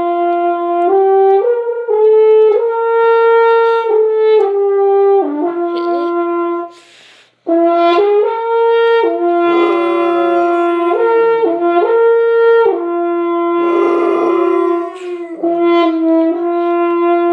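French horn playing a string of held high notes, each about a second long, stepping up and down in pitch, with a short break for breath about seven seconds in.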